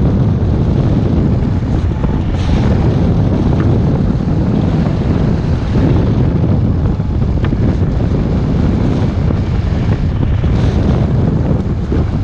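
Airflow rushing over the microphone of a camera mounted on a hang glider in flight: a loud, steady wind roar that swells briefly now and then.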